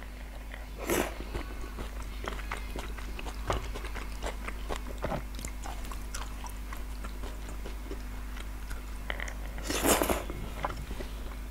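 Close-up mouth sounds of someone chewing soft, chewy Korean rice cakes coated in sauce and cheese: many small wet clicks and smacks, with two louder breathy bursts about a second in and near the end.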